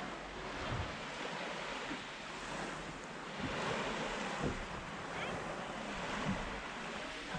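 Sea water washing and lapping with wind on the microphone, a steady rush broken by a few soft low thumps.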